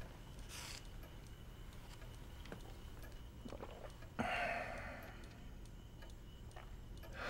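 Quiet room with a clock ticking faintly, and a soft breathy noise about four seconds in.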